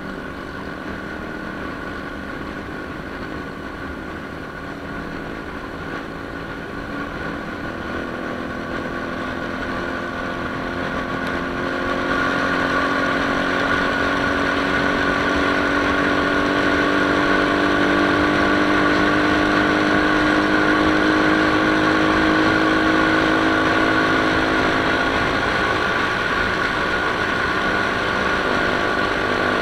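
Motorcycle engine running on the move, with wind and road noise. It grows louder around ten to thirteen seconds in, and its note then climbs slowly.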